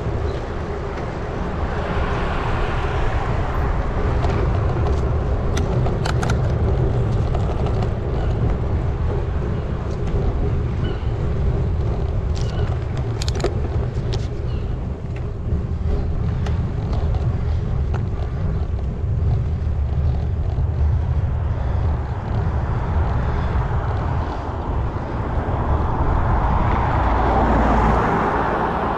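Wind rumble buffeting a GoPro Hero8's microphone while cycling on a road, with a few sharp clicks. A motor vehicle passes, loudest near the end.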